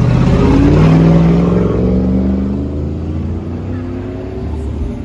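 Cars and a pickup truck driving close past, engines accelerating. The loudest pass comes about a second in, and another engine climbs steadily in pitch near the end.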